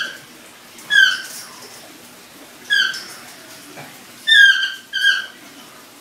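Grey parrot whistling: five short, slightly falling whistled notes, unevenly spaced, the last two close together.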